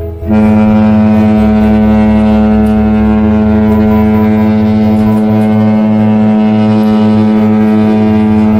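Cruise ship's horn sounding one long, loud, steady blast that starts abruptly a moment in and is held without a break.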